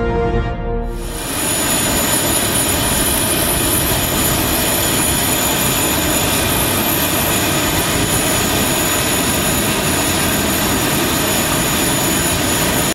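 Turbine noise of an Airbus A400M military transport on the ground: a loud, even rush with a steady high whine, holding constant. It comes in about a second in, as the tail of intro music fades.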